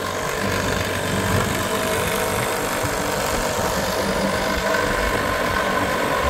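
Small two-stroke outboard motor, a 1978 2 hp Johnson, running steadily at an even pitch.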